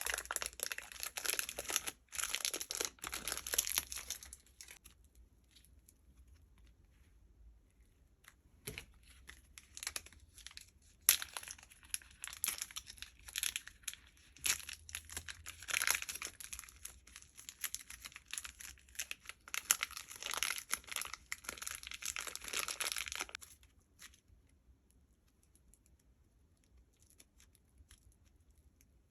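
Slime being squeezed, stretched and pulled apart by hand, making sticky crackling and tearing sounds. The sounds come in two long busy stretches with a few scattered clicks between them, and fade to only faint handling about three-quarters of the way through.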